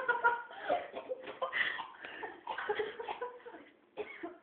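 A person coughing, with laughter and indistinct voices around.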